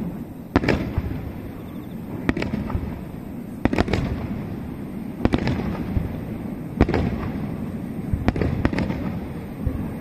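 Aerial firework shells bursting overhead: a sharp bang every second or two, about eight in all, with a low rumble rolling on between them.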